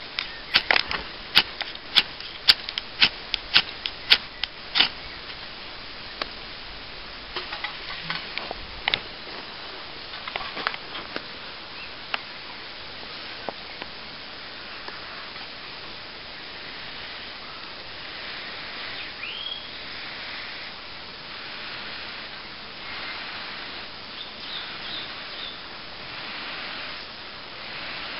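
Ferro rod struck over dry tinder: about a dozen sharp scrapes in quick succession over the first five seconds, then a few scattered strikes. After that only a faint steady hiss with a few soft swells.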